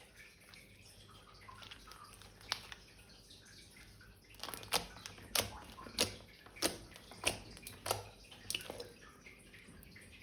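Slime being squished and worked by hand: a single wet click, then a run of about seven wet clicks and pops a little over half a second apart.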